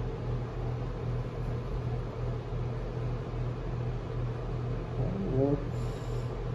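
Steady low electrical hum with a faint regular throb underneath. A short squeak that rises and falls in pitch comes about five seconds in.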